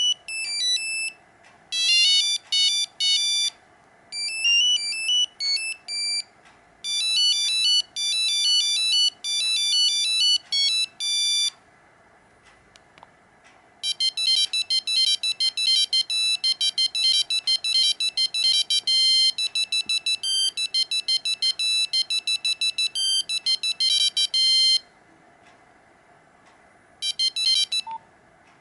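Original monophonic ringtones of a Nokia 5125 mobile phone, played as melodies of short, high-pitched beeping notes. A phrased tune plays first, then a pause about 12 seconds in. A faster tune of rapid notes follows, and a brief snatch of another plays near the end.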